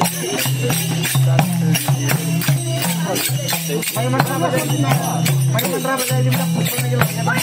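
Tharu folk dance music: a strap-slung hand drum beating a steady, quick rhythm under jingling percussion, with a voice singing over a low steady bass.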